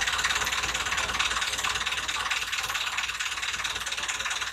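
Boat engine running steadily on a canal, a fast, even chugging with a constant low drone and hiss.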